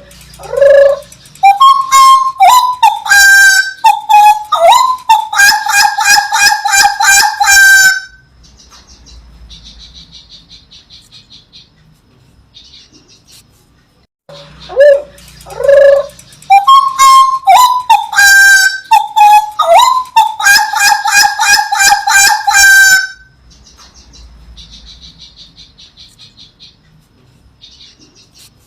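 Loud bird calls: a few rising notes, then several seconds of rapid, evenly repeated honking notes, followed by a softer fast chatter. The whole sequence repeats identically about 14 seconds later, as in a looped recording.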